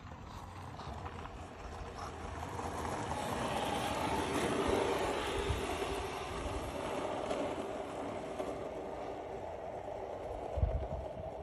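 Skateboard wheels rolling over paving tiles, a steady rumbling that grows louder toward the middle. A low thump comes near the end.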